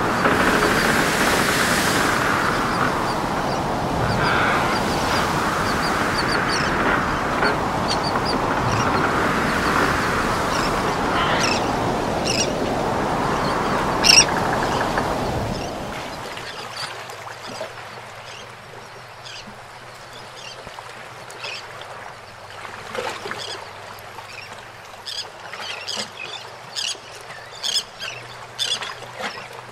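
A steady loud rushing noise with slow swells runs for about the first half, then drops off suddenly. After the drop comes a quieter outdoor background full of many short bird calls.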